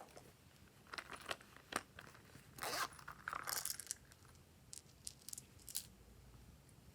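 Glossy slime being mixed and worked by hand, giving sharp sticky clicks and pops, with two longer crackling sounds about two and a half and three and a half seconds in.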